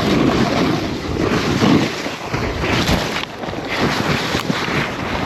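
Wind buffeting a GoPro's microphone: a loud, uneven rush of noise, heavier and deeper for the first two seconds, then thinner.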